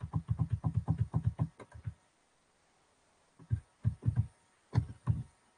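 Computer mouse scroll wheel clicking as a PDF is scrolled: a rapid even run of clicks, about nine a second, for roughly two seconds, then a short pause and a few scattered single clicks.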